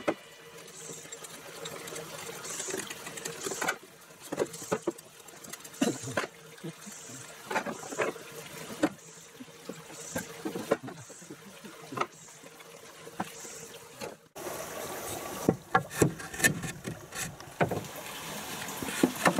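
Irregular hollow knocks and clicks of bamboo against bamboo as poles and thin sticks are handled on a floor of whole bamboo poles. The knocks come closer together and louder after an abrupt change a little past the midpoint.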